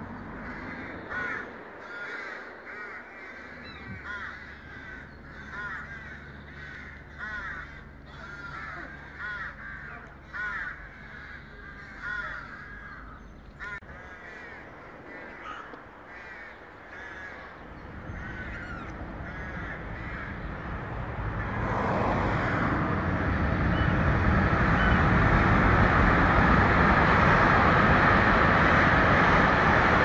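Rooks cawing over and over at their colony of nests, many short harsh calls one after another. In the last third a loud, steady rushing noise swells up and drowns out the calls.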